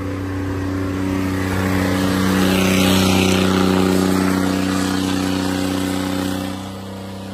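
Diesel tractor engines running steadily under way, louder in the middle and easing off slightly near the end.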